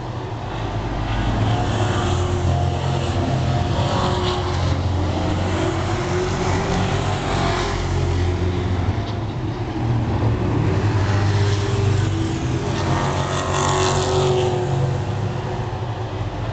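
Stock car engines at racing speed as a field of cars laps an oval. The sound is continuous and loud, swelling and falling away every few seconds as cars pass.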